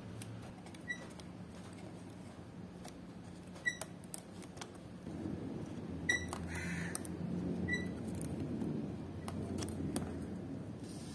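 Craft knife trimming aluminum screen mesh along a pine frame: a few sharp metallic ticks with a short ping as the blade cuts through the screen wires, between faint scraping. From about halfway through, the rustle of the cut mesh strip being handled and pulled away.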